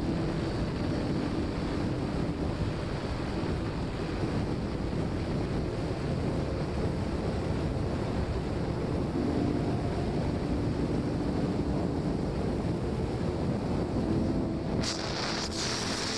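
Wind buffeting the microphone as a steady low rumble, with a faint hum coming and going underneath. A short hiss rises near the end.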